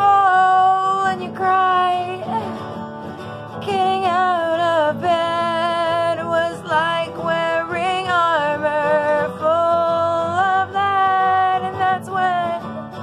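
A woman singing long, held notes while strumming an acoustic guitar, with a short break in the singing about two seconds in.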